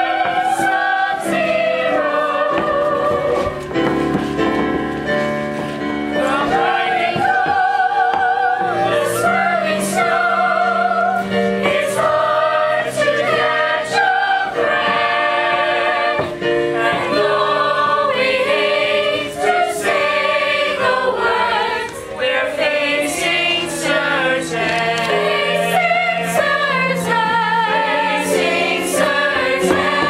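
Stage musical number: a choir of voices singing over instrumental accompaniment.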